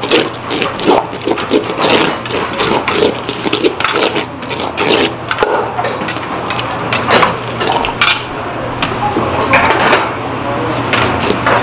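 Red plastic spatula scraping and knocking against a large aluminium pot, in quick repeated strokes, as seasoned rice for bibimbap is mixed by hand. Near the end the rice is scooped into a small stainless steel bowl.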